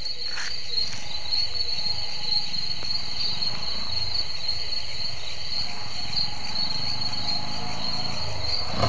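Crickets chirping in a steady high chorus, with a low rumble underneath.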